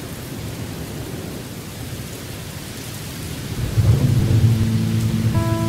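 Steady rain hiss with a low rumble of thunder swelling in about three and a half seconds in. Sustained musical notes begin under it near the end as the song's intro starts.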